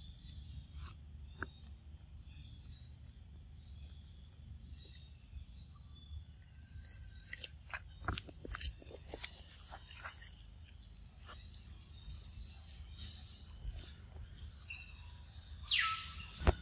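A macaque crunching and chewing fruit, heard as a run of sharp clicks in the middle, over a steady high drone of insects. Near the end there is one brief, loud, falling call.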